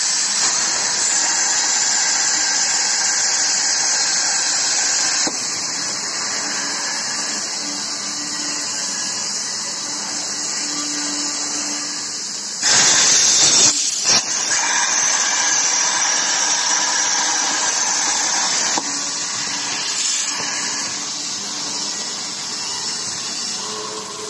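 CNC plasma cutting torch cutting channel steel: a steady, loud, high hiss. About halfway through there is a sharper, louder blast that briefly cuts out a second later before the hiss resumes, and the hiss drops away near the end.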